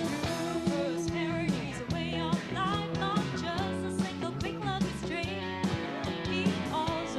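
A worship song: a singer with wavering sustained notes over band accompaniment with a steady beat.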